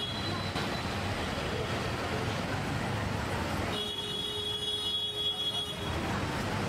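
Busy street background noise, a steady traffic-like rumble with murmur. Past the middle the rumble thins and a steady tone holds for about two seconds, then the street noise returns.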